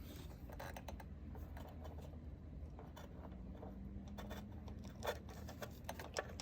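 Faint scratching and small clicks of hands working car headlight wiring and its plastic connectors, with a couple of sharper clicks about five seconds in.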